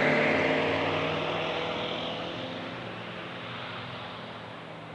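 KitFox Series 7 Super Sport light aircraft flying away after a low pass. Its propeller engine drone slides slightly lower in pitch and fades steadily.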